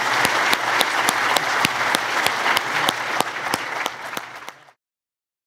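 Lecture-hall audience applauding steadily, with individual sharp claps standing out, the applause fading out near the end.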